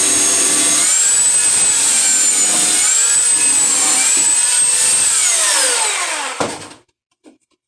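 Power sander running at high speed on wood, a loud high-pitched whine whose pitch dips and recovers as it is pressed on the work. About five seconds in it is switched off and winds down, falling in pitch until it stops, and a few light clicks follow.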